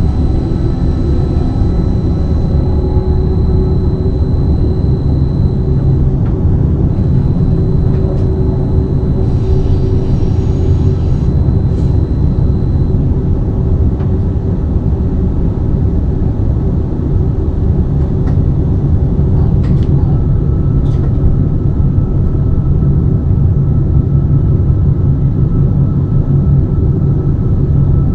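BLS RABe 515 electric multiple unit running along the line: a steady low rumble of the moving train with faint steady tones over it and a few faint clicks.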